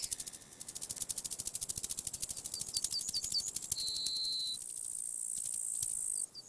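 Cartoon insect sound effects: a fast, even rattling of clicks, with a quick run of short rising chirps about three seconds in, then a brief steady high whistle-like tone and a thin high hiss.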